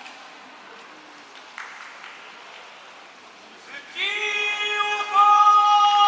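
Faint arena murmur, then from about four seconds in a man's sung, drawn-out call on one long held note that steps louder about a second later: a sumo official intoning a wrestler's name in the ring.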